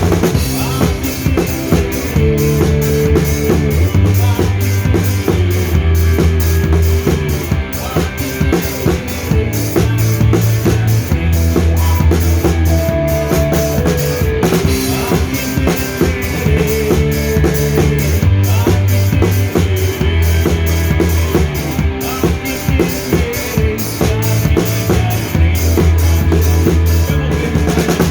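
Live band playing an instrumental passage without vocals: a drum kit keeps a steady beat of kick and snare hits over sustained bass notes that change every second or two.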